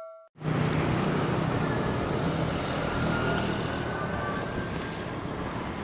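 Steady street traffic noise with a low engine hum, easing off slightly toward the end. The fading tail of a notification-bell ding is heard at the very start.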